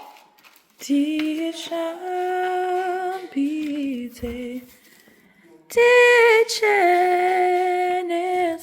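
A woman singing a slow melody in long held notes that step gently up and down, in three phrases with short pauses between them.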